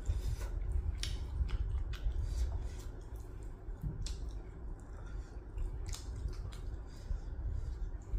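Close-miked chewing of meat, with irregular short wet clicks of the mouth over a steady low hum.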